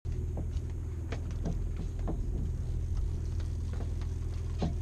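Steady low drone of the fishing boat's engine, with scattered light clicks and knocks on deck.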